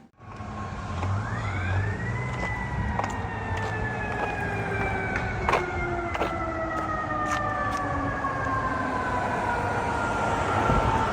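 A fire apparatus's mechanical siren winds up quickly about a second in, then coasts slowly down in pitch for the rest of the time, over the low rumble of the truck's engine. Several short knocks or clicks are heard along the way.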